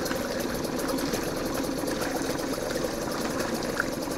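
Mercury 2.5 hp two-stroke outboard motor idling steadily in a test tub of water, just after being pull-started.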